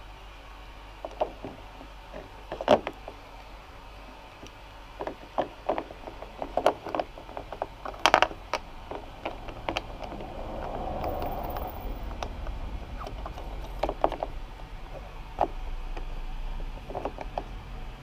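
Hard plastic fairing panel and wiring being handled by hand: irregular clicks and knocks as the panel is flexed and the cables are pushed behind it. A low rumble sits in the background during the second half.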